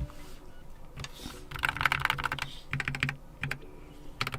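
Typing on a Keychron K4 HE keyboard with Gateron Nebula linear magnetic (Hall-effect) switches. Quick runs of keystrokes come in uneven bursts, the busiest about halfway through, as the keys are tried out after plugging it in.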